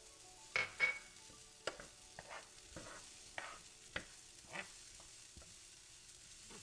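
A vegetable, bean and quinoa filling being stirred in a frying pan: irregular scrapes and clicks of the utensil against the pan over a faint sizzle. The strongest strokes come about a second in, lighter ones follow every half second or so.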